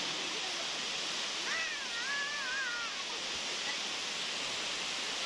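Waterfall rushing in a steady roar of water, with a brief high wavering call about a second and a half in.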